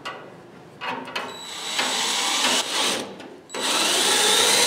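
Cordless drill driving a sheet-metal screw through a patch panel into a rusted fender, after a couple of clicks. The drill runs in two short bursts, then runs steadily from about three and a half seconds in.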